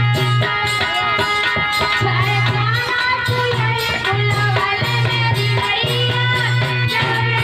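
Instrumental passage of Indian devotional music: a melody with sliding, bending notes over a steady, repeating low beat.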